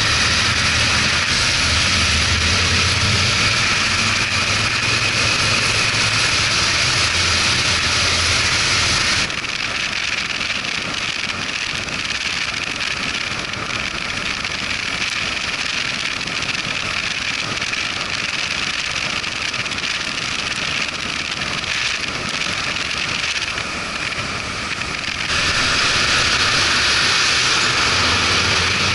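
Motorcycle riding on, its engine running steadily under a strong hiss of wind and road noise. About nine seconds in the sound changes abruptly to a thinner, quieter hiss with the engine faint, and the fuller engine sound comes back near the end.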